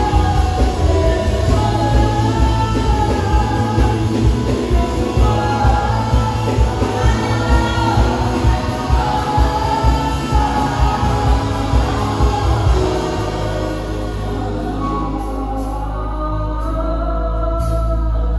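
Live gospel worship song: a woman singing lead into a microphone, with male backing singers and an electric band playing a steady beat. About 13 seconds in, the beat drops out, leaving a held low note under the singing.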